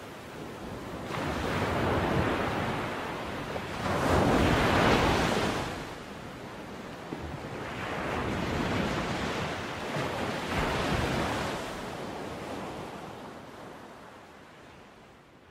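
Ocean surf: waves rushing in and breaking in slow swells, about four of them, the loudest about four seconds in, then fading out near the end.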